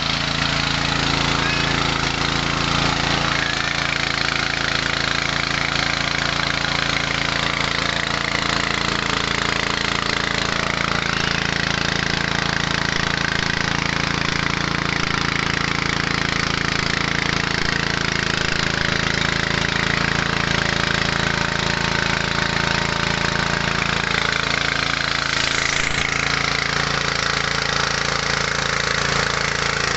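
Small petrol engine running steadily, driving a mini rice huller-polisher.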